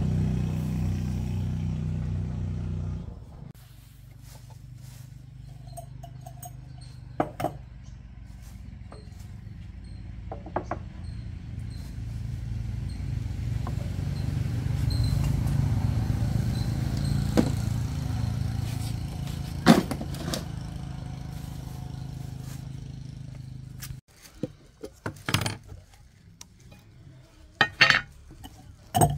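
A low engine drone, loud for the first three seconds and swelling again in the middle, with scattered clicks and taps of metal parts on a wooden table. The drone stops about 24 seconds in, leaving short clinks as a metal paint can is handled.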